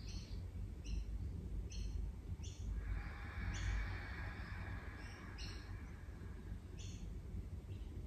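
Small birds chirping, short high calls about once a second, over a low steady hum. About three seconds in, a slow deep breath comes through as a soft hiss lasting about two seconds.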